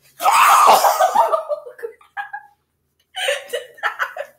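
A loud, rough noise lasting about a second and a half as the lift goes wrong, followed near the end by bursts of laughter.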